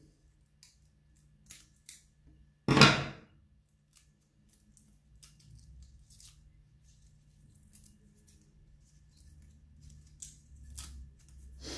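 Scattered light clicks and rustles of hands working with scissors and an orchid's roots and leaves at a potting table. There is one louder brief handling noise about three seconds in, over a faint steady low hum.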